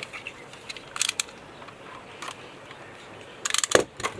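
Scattered clicks and crackles from an action figure's packaging being handled and opened, with a quick flurry of clicks near the end.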